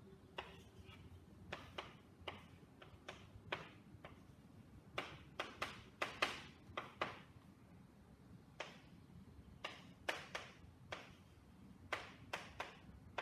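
Chalk writing on a blackboard: irregular sharp taps as the chalk strikes the board, some in quick runs of two to four, with brief scratchy strokes between.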